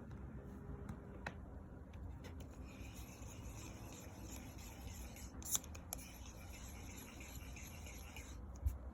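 Shimano 2020 Twin Power C5000XG spinning reel being wound, with a steady shaa-shaa hissing rub from its mechanism, which the owner puts down to the reel being new. A few sharp clicks come through, the loudest about five and a half seconds in and near the end.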